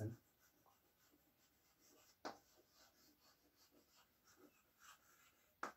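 Chalk faintly scratching on a blackboard as words are written, with two sharper ticks, one about two seconds in and one near the end.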